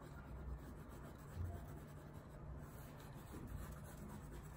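Oil pastel rubbing across sketchbook paper in shading strokes, a faint scratchy sound.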